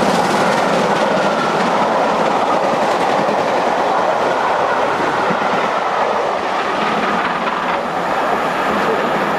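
Passenger coaches of a steam-hauled train rolling past at speed: a steady rushing rail noise with wheels clattering over the rail joints, easing a little as the last coach goes by.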